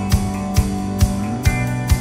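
Background music with a steady drum beat, about two beats a second, over guitar.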